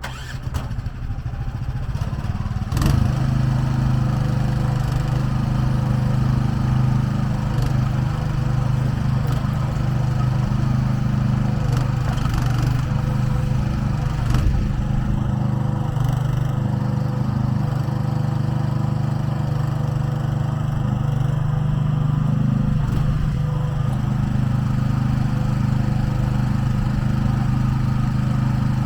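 AGROTK mini excavator's small engine running steadily, building up over the first three seconds, with a sharp clunk about three seconds in and another about fourteen seconds in.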